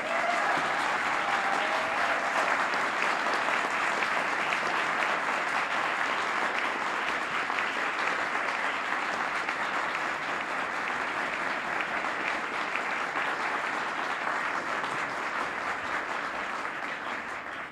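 Audience applauding, a long steady round of clapping that fades away near the end.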